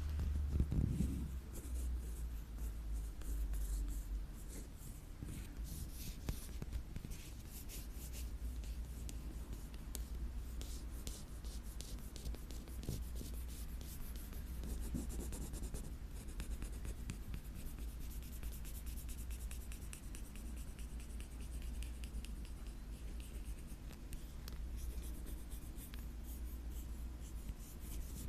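Close-miked scratching: rapid, light scratching strokes on an object's surface, a dense run of fine scrapes and ticks over a low steady hum.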